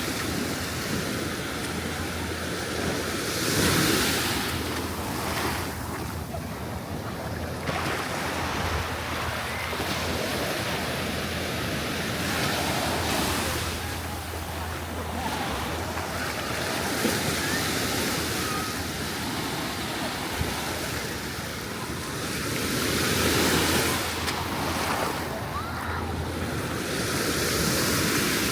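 Ocean surf washing onto the beach as a continuous rush, swelling louder as waves break a few seconds in and again about three-quarters of the way through.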